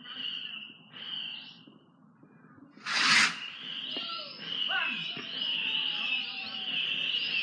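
Fireworks: two short whistles, then a loud bang about three seconds in, followed by a continuous warbling whistle with falling whines beneath it.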